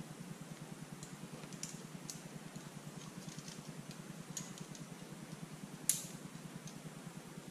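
Light clicks and clinks of climbing gear, carabiners and rope being fed through a belay device as slack is paid out to a lead climber, with one sharper click about six seconds in. A steady low hum runs underneath.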